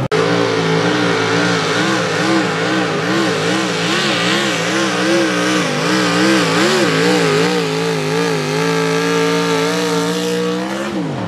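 A mini rod pulling tractor's engine running flat out under load as it pulls the sled, its pitch wavering rapidly up and down. Near the end the note steadies, then falls away sharply as the engine is let off.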